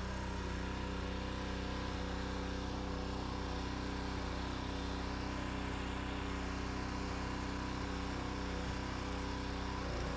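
Small petrol engine of a pressure washer running steadily at constant speed.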